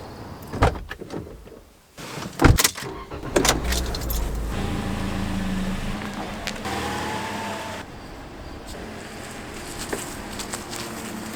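Car sounds in short cut-together pieces: a few sharp knocks and a rattle like keys, then a car running steadily.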